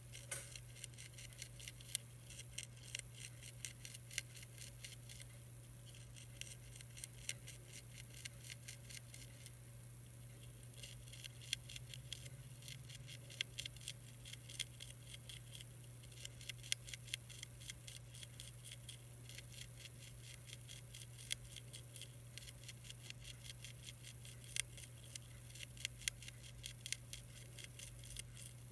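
Monarch caterpillar chewing a milkweed leaf: a fast, irregular run of tiny crisp clicks, several a second, over a steady low hum.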